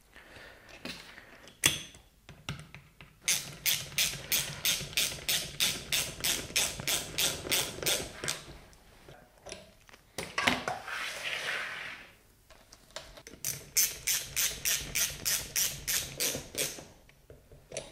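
Socket ratchet clicking steadily, about three clicks a second, as it runs retaining bolts into an air suspension compressor's housing. There are two long runs of clicks with a short rustle between them.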